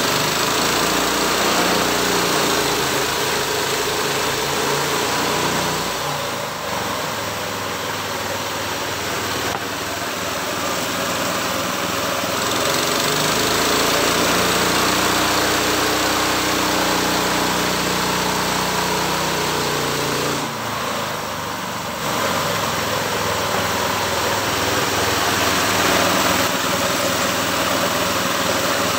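Small engine driving a home-built sawmill, running continuously. Its note changes for several seconds in the middle and the level dips briefly twice.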